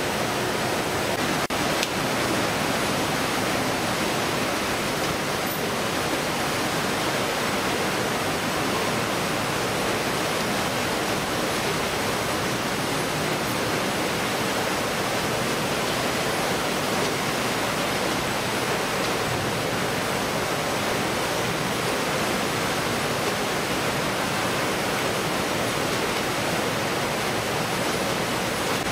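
Steady, even noise of a fish-processing line's conveyors and machinery running, with a faint high whine held throughout and no distinct knocks or rhythm.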